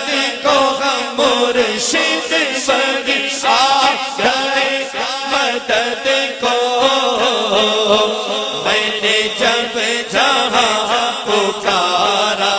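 A male voice chanting a manqabat, an Urdu devotional song, through a microphone and sound system. The melody bends in long held phrases over a steady low tone.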